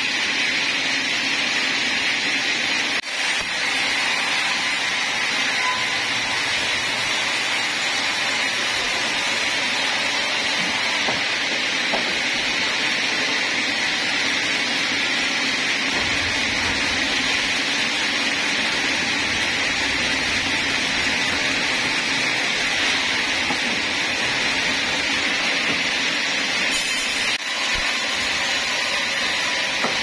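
Sawmill's large vertical band saw running, a steady loud machine noise with a hissing edge; a low rumble joins about halfway through.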